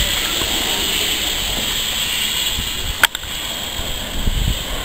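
Steam locomotive moving slowly, with a steady hiss and low rumble, and one sharp click about three seconds in.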